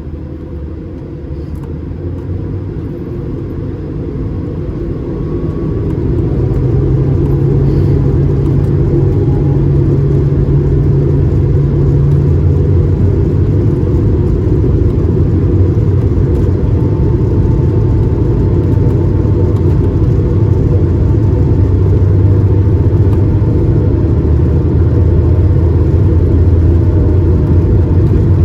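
Airbus A220-300's Pratt & Whitney PW1500G geared turbofan engines heard from inside the passenger cabin, growing louder over the first several seconds and then holding a loud, steady rumble with a low drone: the engines at takeoff thrust.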